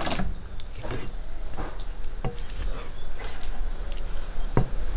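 A flat spatula stirring and scraping a thick onion masala with whole boiled eggs in a non-stick kadai. Irregular short clicks and scrapes of the spatula against the pan sound over a faint sizzle.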